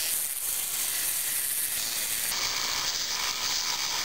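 Cordless Dremel rotary tool on low speed, its cutting wheel grinding through a clay poker chip: a steady gritty hiss that turns harsher and brighter a little over two seconds in.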